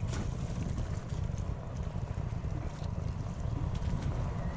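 Wind buffeting the microphone, a steady low rumble, with a few faint clicks.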